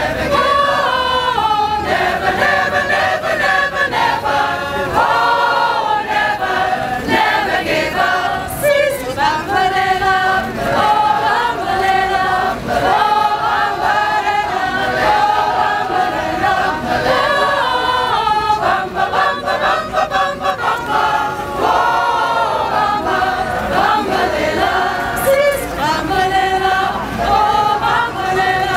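A choir of mostly women's voices singing together unaccompanied, with held notes and steady, continuous singing.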